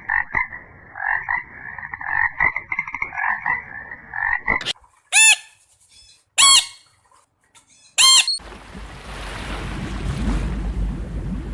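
Animal calls: a rapidly pulsing, croaking call for about four and a half seconds, then three loud separate calls, then a steady low rumbling noise.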